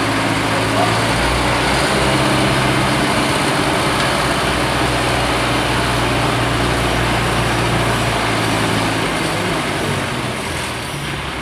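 An engine running steadily, a continuous loud mechanical drone with a low hum; the lowest part of the hum drops away about eight seconds in.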